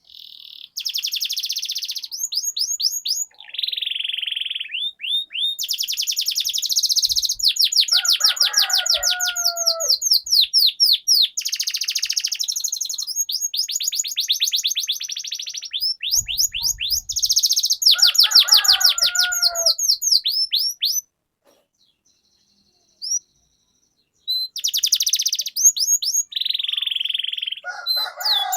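Domestic canary singing long rolling trills, fast runs of rapidly repeated notes mixed with sweeping whistled syllables. The song breaks off for about three seconds about three-quarters of the way through, then resumes.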